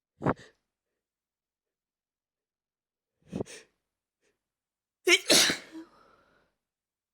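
A fit of sneezing: three separate sudden sneezes with silence between them, the last and loudest about five seconds in.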